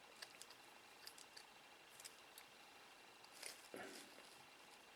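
Near silence, with a few faint small clicks and a soft rustle about three and a half seconds in, from small drone parts being handled.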